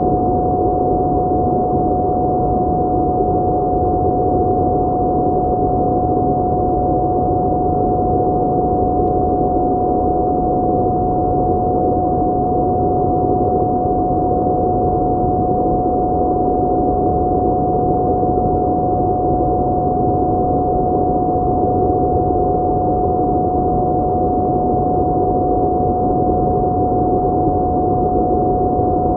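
A steady drone: one unbroken high tone held over a dense, muffled rush of noise, unchanging throughout.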